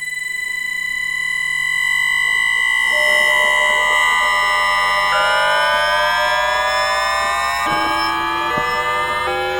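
Bombardier Mitrac IGBT VVVF traction inverter of a 2009 Tube Stock train, picked up electromagnetically by telephone pickup coils as the train accelerates. A steady high whine gives way to several rising tones, which jump to new pitches three times as the inverter changes pulse pattern.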